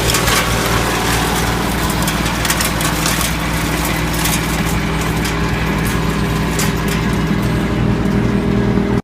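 Tractor-powered CRONIMO WCH8 woodchipper running steadily under the tractor engine's drone, with rapid sharp cracks and clicks of conifer branches being chipped, thinning out in the last couple of seconds.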